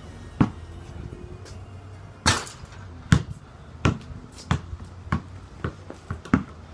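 A basketball being dribbled, bouncing about every two-thirds of a second, with one louder bounce about two seconds in and the bounces coming a little quicker near the end.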